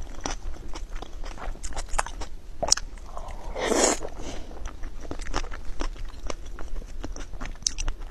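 Close-miked wet chewing of raw salmon: soft, sticky mouth clicks and smacks. A brief louder rush of noise comes a little before the middle.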